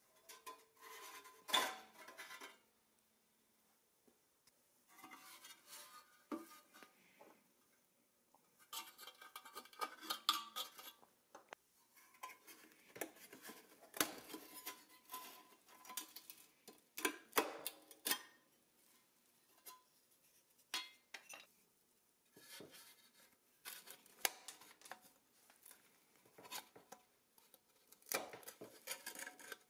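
Hands disassembling a rusty pressed-steel Tonka toy crane cab: irregular metal clinks, clicks and scrapes as the cab and its clear plastic window are pried apart, with a few short pauses.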